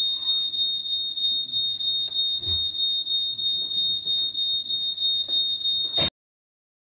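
A steady, high-pitched electronic tone whose loudness swells about two or three times a second, cutting off suddenly about six seconds in.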